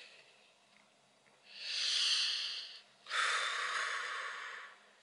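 A person breathing out hard twice after downing a shot of liquor: a hissing breath about a second and a half in, then a longer, heavier breath about three seconds in.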